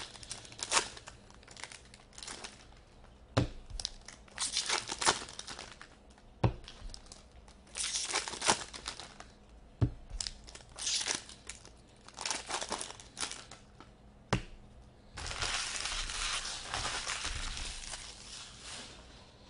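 Foil wrappers of 2017/18 Upper Deck SP Authentic hockey card packs crinkling and tearing as the packs are opened by hand, in short bursts, with a few sharp taps as cards are set down on the table. About three-quarters of the way through the crinkling becomes continuous.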